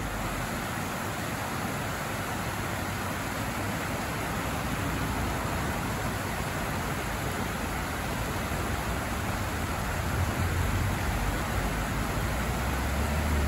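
Steady wash of rain-swollen river water pouring over a series of low stepped weirs, with a low rumble swelling near the end.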